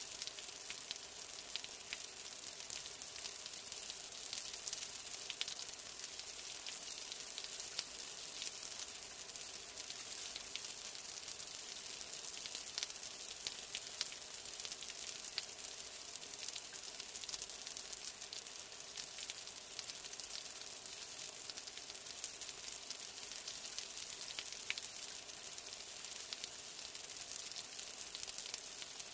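Steady rain falling, an even high-pitched hiss dotted with many small sharp drop ticks.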